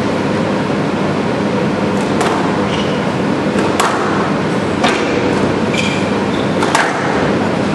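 Squash rally: sharp cracks of racket striking ball and ball hitting the walls, one every second or two, with a few short high squeaks, over a steady hall hum.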